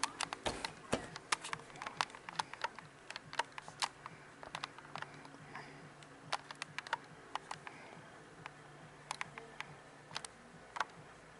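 Irregular sharp clicks and ticks of a plastic DVD case being handled and turned in the hand, over a faint steady hum.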